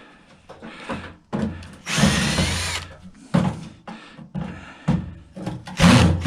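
Power drill driving a 1/4-inch nut driver in short bursts, the longest about two seconds in, backing screws out of a microwave oven's sheet-metal case.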